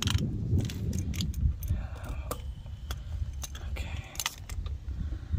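Scattered metallic clicks and rattles as an air chuck is unclipped from a tire valve stem and a hand-held tire pressure gauge's brass chuck is fitted onto it.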